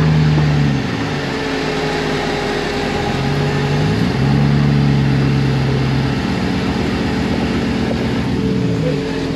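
Off-road buggy engine running under load, its pitch dropping about a second in, climbing again around three to four seconds, and dropping once more near the end, over steady background noise.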